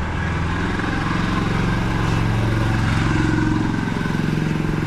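A motor vehicle's engine running close by, getting louder over the first few seconds and then holding steady.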